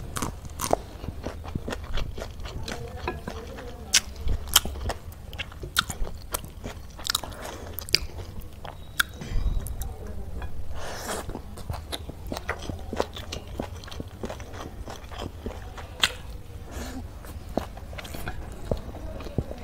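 Close-miked eating of spicy stir-fried chowmein noodles and raw green chillies: chewing and crunching with many sharp, wet mouth clicks at an irregular pace.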